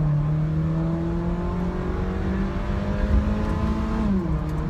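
Tuned Honda City's engine, with a performance camshaft and AZC exhaust, accelerating at full throttle and heard from inside the cabin. The engine note climbs steadily as the revs rise toward about 7,000 rpm, then drops in pitch about four seconds in as the gearbox shifts up.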